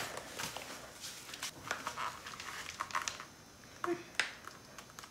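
Soft crinkling of a plastic zip bag of icing being squeezed by hand, with scattered small clicks and taps from handling graham crackers on a foil-covered board.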